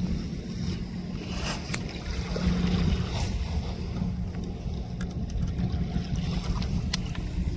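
Steady low drone of a boat engine running on the river, with wind rumbling on the microphone.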